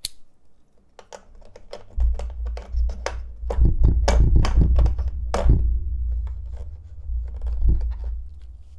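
Small metal soldering tips and plastic parts clicking and knocking as they are handled in a hard plastic carry case, the clicks coming thickest in the middle. A deep rumble comes in about two seconds in and fades near the end.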